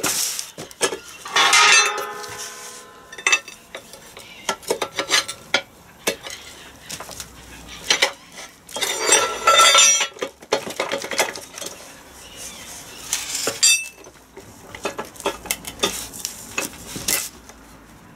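Metal clinks, knocks and scraping as a Land Rover R380 gearbox casing is rocked and lifted off its gear shafts, with one ringing metal strike about two seconds in and a longer rattle of parts near the middle.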